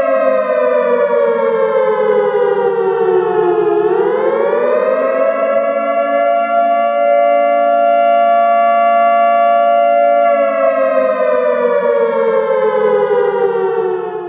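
Civil defence siren wailing: its pitch falls slowly, rises quickly about four seconds in, holds steady for several seconds, then falls again before cutting off suddenly at the end.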